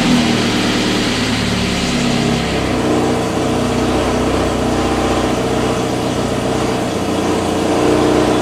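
Mazda Miata's inline-four engine idling just after starting, its pitch shifting over the first couple of seconds and then settling to a steady idle while oil pressure builds.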